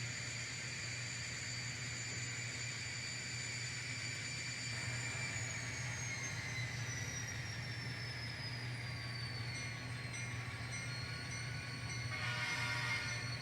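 N scale model train running on the layout: a steady hum with a high motor whine that slides lower in pitch as the train slows, and a short rattle near the end.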